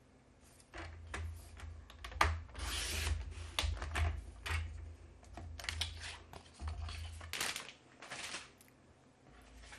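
Black cardstock being cut on a sliding-blade paper trimmer: a run of clicks and scraping swishes as the sheet is set against the rail, the arm is lowered and the cutting head is drawn along its track, with dull knocks on the tabletop.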